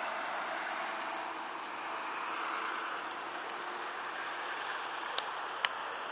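Steady noise of city street traffic, with two short sharp clicks a little after five seconds in.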